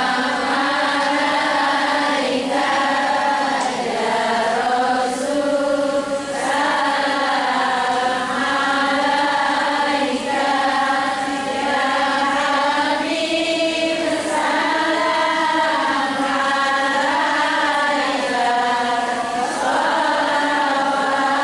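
Several voices chanting together in unison: a steady, melodic devotional recitation in the manner of Islamic sholawat, sung continuously with few pauses.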